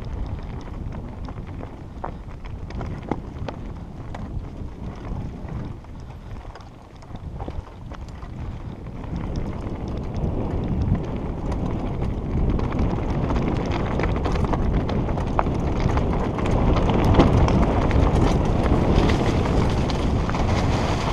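Wind buffeting a helmet-mounted camera's microphone while a mountain bike descends fast over stony grass, with tyres rolling and the bike rattling and knocking over rocks. It gets louder about nine seconds in as the speed picks up.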